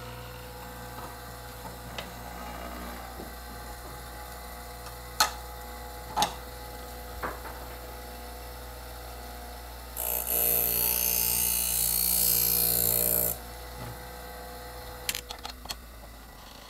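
Wolff Industries sharpening machine's motor running with a steady hum. About ten seconds in, button-hole scissors are ground on its 600-grit stone for about three seconds, cutting off the burr, with a few sharp clicks before and after.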